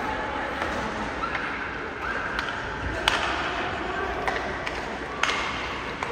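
A few sharp knocks and clacks of play, the two loudest about three and five seconds in, over a murmur of distant voices in an echoing hall.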